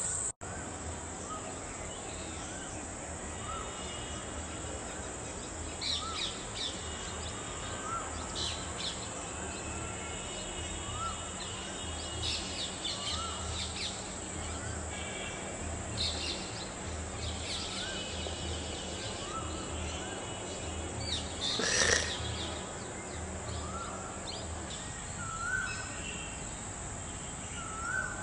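Outdoor garden ambience with birds calling: one bird repeats a short rising-and-falling note about every second and a half, while others chirp higher up. A crow caws, loudest about 22 seconds in.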